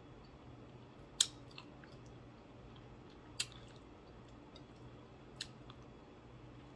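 A person chewing with the mouth close to the microphone, making sharp wet lip-smacking clicks about every two seconds, the first the loudest, over a faint steady hum.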